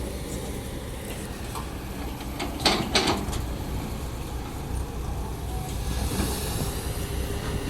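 Kobelco SK200-10 excavator's Hino J05E diesel engine running steadily, with a few sharp knocks about two and a half to three seconds in.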